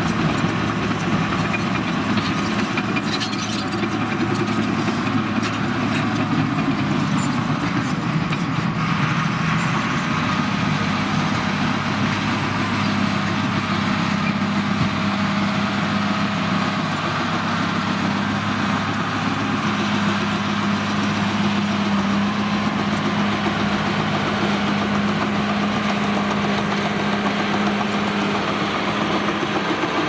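Caterpillar D5G LGP bulldozer's diesel engine running steadily at a constant pitch under load as it pushes dirt, with scattered clanks in the first several seconds.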